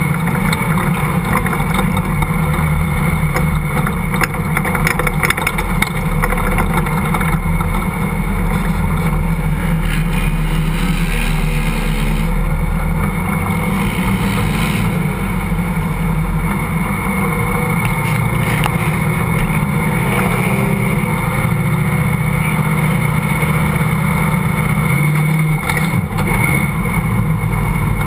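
Off-road vehicle engine running hard across sand, heard from a hood-mounted camera with steady wind noise over the microphone. The engine note dips briefly near the end before picking up again.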